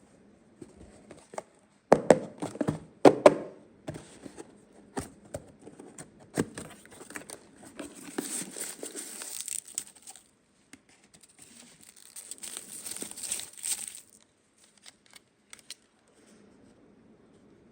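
Unboxing of a plastic toy playset: a few sharp knocks and clicks of toy parts being handled, then packaging being crinkled and torn in two spells of several seconds each.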